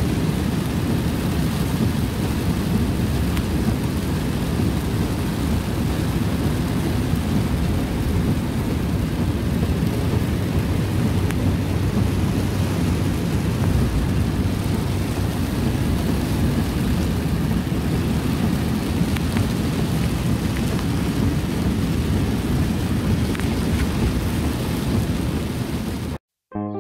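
Heavy rain falling steadily, a dense unbroken hiss with a deep rumble beneath it and faint scattered drop ticks, cutting off abruptly near the end.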